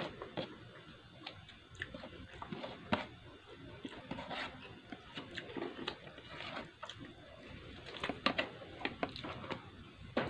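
Close-up eating sounds: chewing with wet mouth clicks and smacks, and fingers pressing and gathering rice on a plate, in irregular small clicks and soft rustles.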